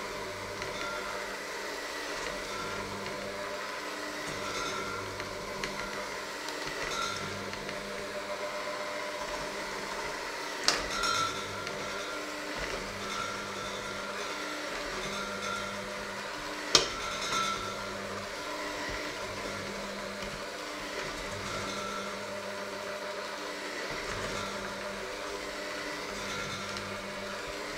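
Electric hand mixer running steadily, its beaters working a thick mixture in a stainless steel bowl. The beaters knock sharply against the bowl twice, once about a third of the way through and again a little past halfway.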